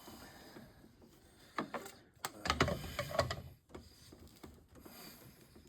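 Plastic clicks and knocks of a whole-house water filter housing and cartridge being handled and fitted, with a close cluster of them about one and a half to three and a half seconds in.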